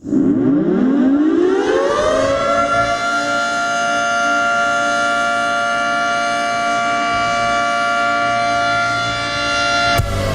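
Hockey goal horn, a siren winding up: its pitch rises over about two seconds, then holds a steady wail of several tones together. It cuts off sharply near the end, and goal-song music starts.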